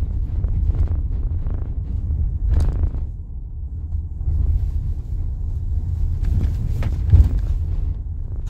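Car driving, its engine and road noise a steady low rumble heard from inside the cabin.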